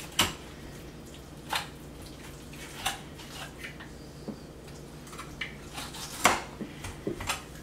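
Kitchen knife cutting the belly rib bones out of a red snapper on a wooden cutting board: about ten irregular sharp clicks, the loudest about six seconds in.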